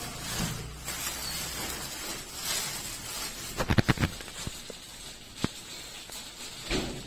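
Plastic wrapping rustling and crinkling as wrapped fairing panels are handled in a cardboard box, with a quick run of knocks a little past the middle and a single sharp click shortly after.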